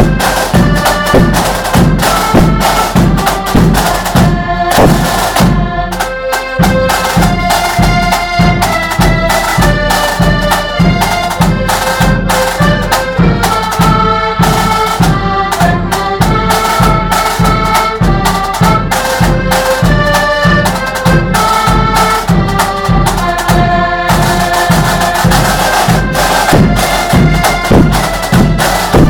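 Accordion band playing a march: several accordions carry the tune in held, reedy notes over side drums and bass drum keeping a steady beat.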